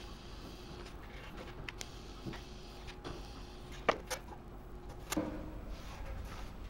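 Scattered light clinks and knocks of tools and metal parts being put down and moved on a perforated steel welding table, the sharpest about four seconds in and again just after five, over a faint steady hum.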